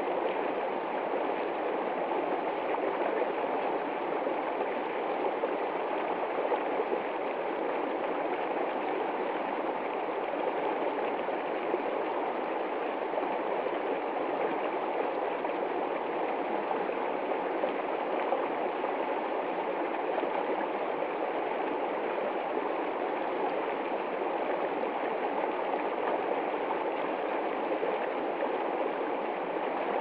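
Creek water rushing and splashing over rocks in a small cascade, a steady, unbroken rush.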